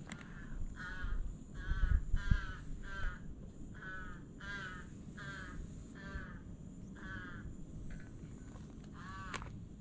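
A crow cawing over and over, about two caws a second for the first seven seconds, then once more near the end. A few low bumps about two seconds in are louder than the caws.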